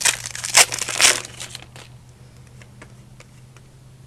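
Trading cards and their pack wrapper being handled: crackly rustling and crinkling for about two seconds, loudest twice, then it dies away to a faint steady hum.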